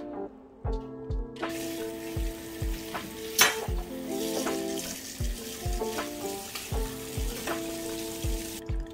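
Kitchen tap water pouring into a steel bowl as salted napa cabbage is rinsed by hand. The steady hiss starts about a second and a half in and cuts off just before the end, with one sharp click about three and a half seconds in. Background music with a steady beat plays throughout.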